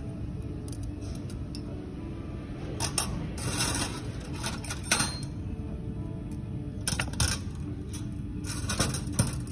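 Stainless steel ring-handled surgical instruments (hemostats and clamps) clinking and jingling against one another as they are picked out of a pile and sorted. The metallic clinks come in several separate bursts, the sharpest about five seconds in and again near seven seconds, over a steady low hum.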